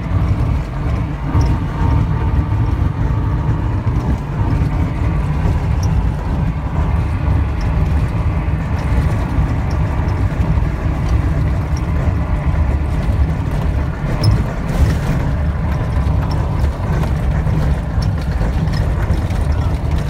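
ASK 21 glider rolling out on a grass runway after landing: a steady low rumble of the wheel and airframe over the turf.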